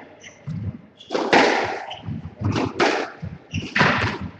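Squash rally: the ball struck by rackets and smacking off the court walls, several sharp hits that echo in the court, the loudest about a second in.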